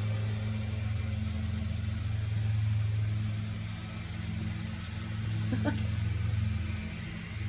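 Steady low mechanical hum, like an engine or motor running, with a brief rising squeak and a couple of clicks about five and a half seconds in.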